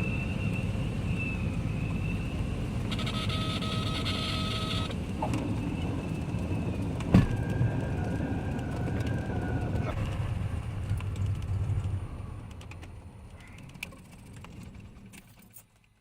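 Propeller plane after touchdown, its engines running with a steady low rumble and a thin whine above it. There is a short burst of hiss about three seconds in and a single sharp knock about seven seconds in, and the sound then fades away over the last few seconds.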